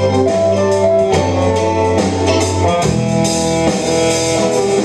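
Live rock band playing: electric guitar and bass over drums, with sustained keyboard chords.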